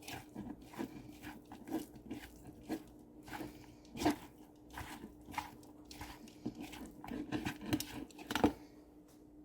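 Shredded imitation crab meat being tossed and mixed in a bowl with oil and seasoning: irregular light clicks, rustles and scrapes, a couple of them sharper.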